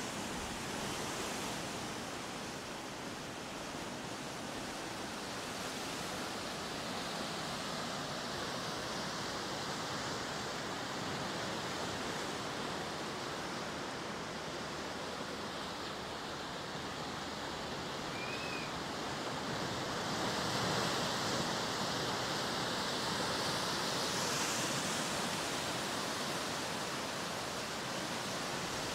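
Ocean surf on the shore, a steady rushing wash that swells louder about twenty seconds in as a bigger wave breaks.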